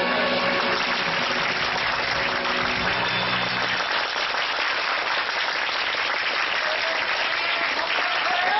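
Audience applauding steadily, with the last held notes of backing music stopping about four seconds in.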